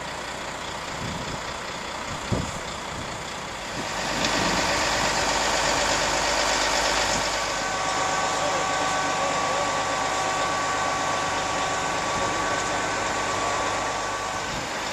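Truck engine running steadily while a wrapped sculpture is lifted on straps, getting louder about four seconds in, with a steady whine from about seven seconds in. A brief knock about two seconds in.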